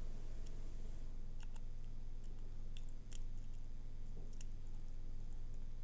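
Small, sharp metallic clicks and ticks, a dozen or so irregularly spaced, from a lock pick and tension tool working the pins inside an Ultion cylinder lock during single-pin picking, over a steady low hum.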